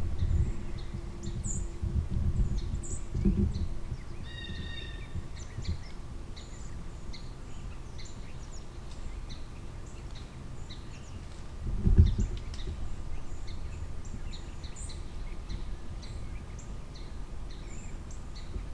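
Woodland ambience: small birds chirping on and off, with one short pitched call about four seconds in. Low thumps near the start and again about twelve seconds in.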